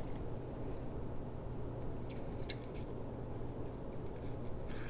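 Faint light clicks and scratching of a small metal tool being poked through the tiny hole of a carburettor pilot jet, over a steady low hum.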